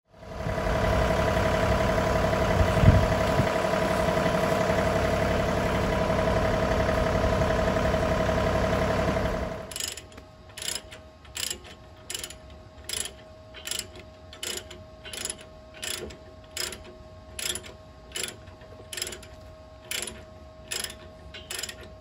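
A compact tractor's diesel engine running steadily, with one sharp knock about three seconds in. After about nine and a half seconds it drops to a faint hum and a lever chain hoist ratchets in even clicks, about one and a half a second, as its handle is pumped.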